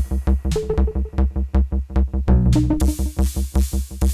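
Electronic music played live, with a steady low beat and short synth notes. The high hiss above the beat thins out in the middle and comes back about two and a half seconds in.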